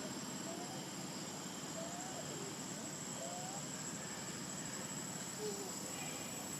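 Steady outdoor background with a continuous high, thin insect drone like crickets, and a few faint short chirping calls scattered through it.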